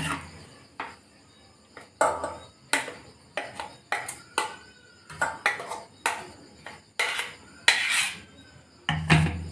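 A metal spoon scraping and knocking against a stainless steel mixer-grinder jar as thick ground dosa batter is emptied into a steel bowl. It makes a string of about a dozen irregular clinks and scrapes, loudest near the end.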